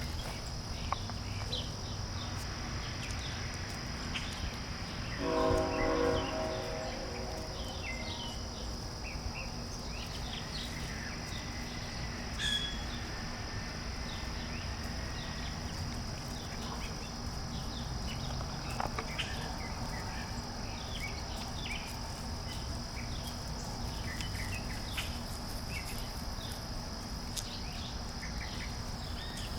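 Puppies stirring, with scattered small scratches and clicks, and one whimper about two seconds long, about five seconds in. It plays over a steady high tone and a low hum.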